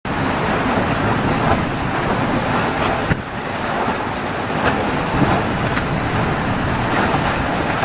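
Steady rush of wind and water on a sailboat sailing in about 20 knots of wind, with wind rumbling on the microphone; it dips briefly about three seconds in.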